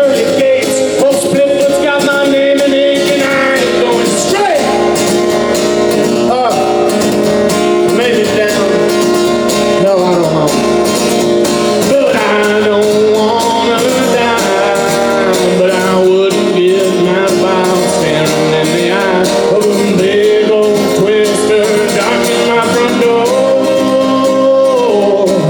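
Live acoustic music between sung verses: guitar accompaniment with a wavering, sliding melody line held over it.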